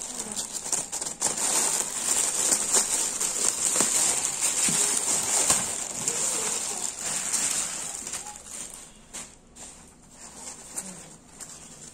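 Thin plastic mailer bag crinkling and rustling as it is handled and torn open, loudest in the first seven seconds, then softer rustling as the fabric cat tunnel is pulled out.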